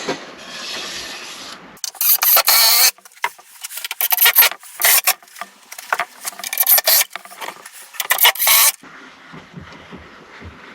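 Wood being sanded by hand: a run of loud, irregular scraping strokes that starts about two seconds in and stops about nine seconds in.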